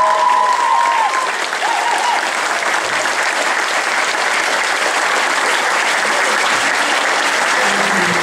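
Audience applauding steadily, taking over as the last held notes of the dance music stop about a second in.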